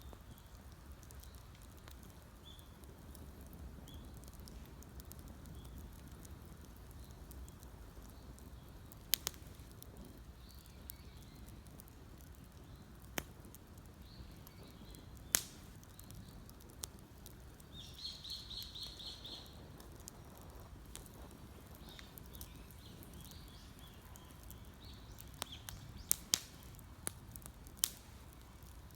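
Wood campfire crackling, with occasional sharp pops that come more thickly in the last few seconds. Partway through, a bird gives a short trill of rapid repeated notes, and faint bird chirps come and go.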